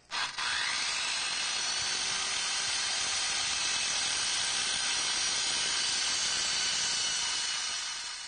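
Handheld electric power tool switched on. Its motor spins up with a quick rising whine, then runs at a steady high whine and hiss, and the sound fades away near the end.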